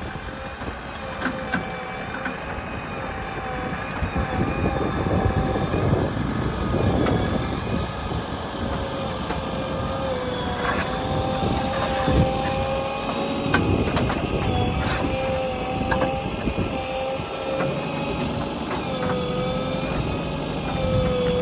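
JCB 3DX backhoe loader's diesel engine running under load with a steady whine, growing louder about four seconds in, with occasional knocks and clanks from the digging.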